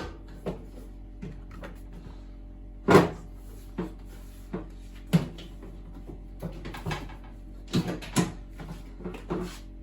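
Sheet-metal front panel of a washing machine being fitted, knocking and clunking as it is lifted onto its locators and drops down into place. The loudest clunk comes about three seconds in, with scattered lighter knocks after it.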